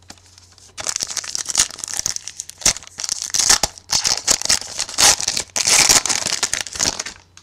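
The foil wrapper of a 2011 Playoff Contenders football card pack crinkling and tearing as it is handled and ripped open by hand. The crackle starts about a second in and stops just before the end, with many sharp crinkles and snaps.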